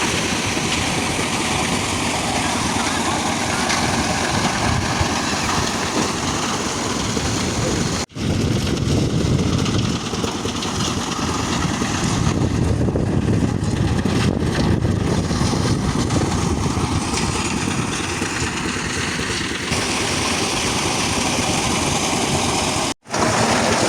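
Concrete mixer machine running steadily with its drum turning. The sound cuts out for an instant about eight seconds in and again near the end.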